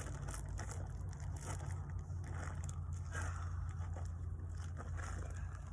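Gritty scraping and crunching as damp, pre-mixed cold-patch asphalt is worked into a pothole with a hand tool, in short irregular strokes over a steady low hum.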